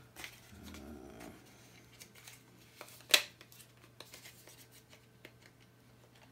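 Small items and a small cardboard box handled and set down on a cloth-covered table: one sharp tap about three seconds in, with a few light ticks around it, and a brief low murmur near the start.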